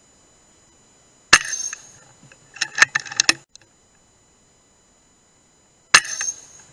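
Two shots from an FX Wildcat FAC air rifle, about four and a half seconds apart, each a sharp crack with a brief ringing tail. About a second after the first shot comes a quick clatter of clicks and rattles.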